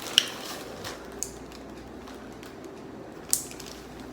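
Close handling noises: a few sharp clicks and taps over a faint steady hiss, the loudest a little past three seconds in.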